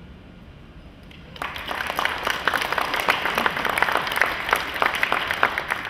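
Audience applauding, breaking out suddenly about a second and a half in as a dense patter of many hand claps.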